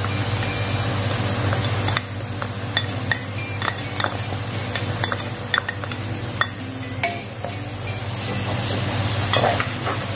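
Hot oil sizzling in a wok with frying onion, garlic and ginger, crackling with scattered sharp pops as annatto (achuete) is fried in. Near the end a wooden spatula starts stirring and scraping the pan.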